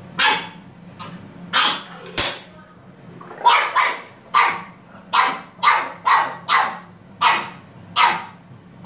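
A French bulldog puppy barking, about a dozen short barks that come faster in the middle. A single knock sounds about two seconds in.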